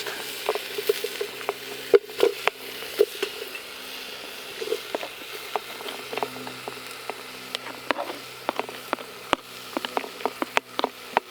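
Food frying in oil in a pan over a campfire: a steady sizzle with scattered sharp pops and crackles, which come more often near the end.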